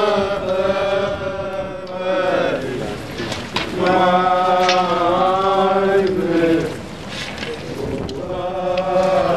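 A group of romeiros, Azorean Lenten pilgrim men, chanting together as they walk, in long held phrases with short breaks between them.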